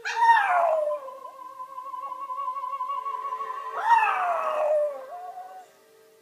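A dog howling along to music from a television: two howls, each starting high and sliding down in pitch, one at the start and another about four seconds in, with a long held musical note between them.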